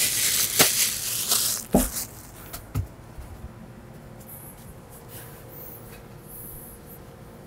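Thin plastic packaging bag crinkling as it is scrunched up in the hands, with a few sharp crackles, stopping about two seconds in; after that only faint background.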